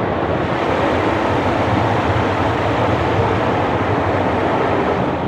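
Kärcher automatic car wash running over a car, heard from inside the cabin: a steady, loud rush of water spray and brushes on the body and glass, with the gantry's machinery underneath.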